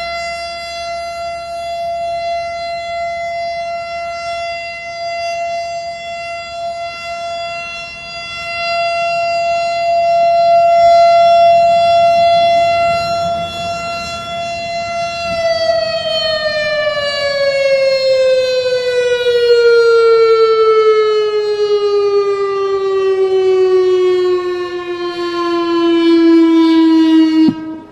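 Outdoor warning siren on a pole sounding a steady tone, its loudness swelling and fading as the rotating horn turns. About halfway through it winds down, the pitch sliding slowly lower for over ten seconds until it cuts off near the end.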